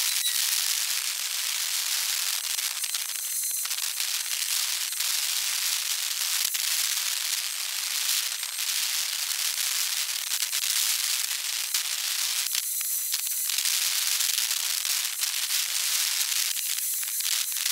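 Sped-up outdoor ambient sound: a dense, high-pitched crackling hiss with no low end, thinning briefly about three seconds in, around thirteen seconds and near the end.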